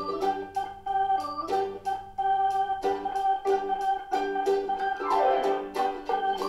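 Background music: an electronic organ-like keyboard melody over a steady beat.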